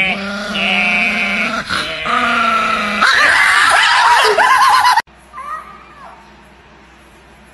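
A man and a small white dog howling together, held steady at first, then rising into loud, wavering, yelping howls about three seconds in, which stop abruptly about five seconds in.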